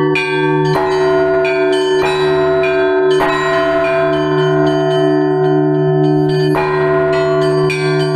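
Russian Orthodox church bells rung by hand in a zvon: smaller bells struck in quick, overlapping patterns over the steady, lingering hum of a large bell.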